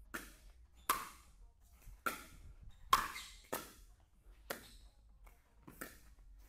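Pickleball rally: about seven sharp pocks of paddles striking the hollow plastic ball and the ball bouncing on the court, each with a short echo.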